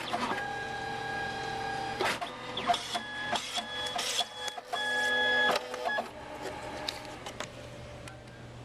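Photo booth's photo printer printing a photo strip: a motor whine that steps between several steady pitches, with clicks as the paper feeds and shifts, dying down about six seconds in.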